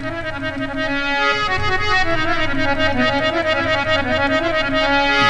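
Harmonium playing a melodic instrumental interlude between the sung lines of a folk song, growing a little louder toward the end.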